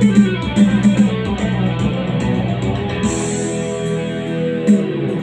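Electric guitar playing the lead melody of a pop-rock song, with notes held from about three seconds in, over a backing track with drums and bass.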